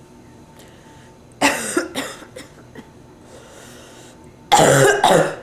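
A woman with bronchitis coughing: a quick pair of harsh coughs about a second and a half in, two small ones after, then one louder, longer cough near the end.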